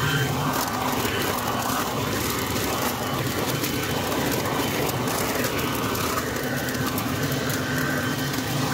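Portland 12-amp electric blower vacuum mulcher running in vacuum mode, its tube sucking up wet oak leaves. A steady motor-and-impeller hum with a high whine, over a rustling crackle as the leaves are drawn in and chopped.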